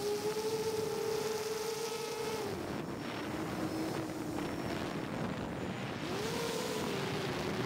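Heavy 8S FPV drone's motors and propellers whining over wind rush. The pitch drops about two and a half seconds in as the throttle eases, then swells and falls again near the end.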